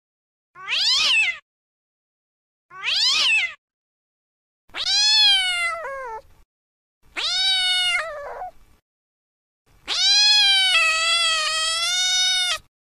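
Domestic cat meowing five times with silence between the calls. The first two are short and fall in pitch; the last three are longer and steadier, and the final meow is drawn out for about three seconds.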